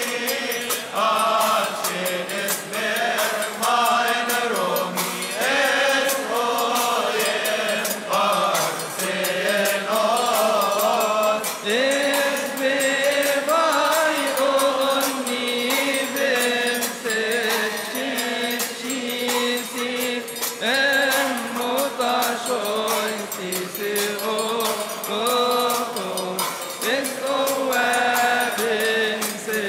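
Many voices singing a Coptic hymn in praise of Mary, a slow chant whose pitch rises and falls, with short regular strikes sounding through it.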